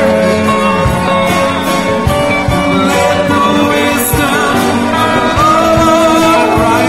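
Live worship music from a church band, with a wavering melody line that stands out in the second half.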